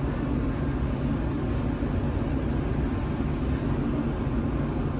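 Steady low rumble and hum heard inside a tram, mixed with road traffic outside.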